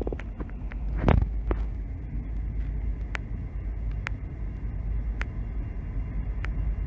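Low, steady rumble with sharp clicks about once a second, with a brief louder burst about a second in; no horn sounds.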